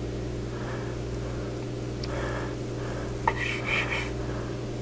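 Long slicing knife sawing through a smoked beef brisket on a cutting board, with a sharp tap of the blade on the board a little over three seconds in, followed by a short scrape. A steady low hum runs underneath.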